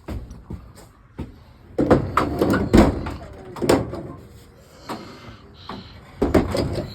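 Irregular knocks and clatter of objects being handled and set back in place.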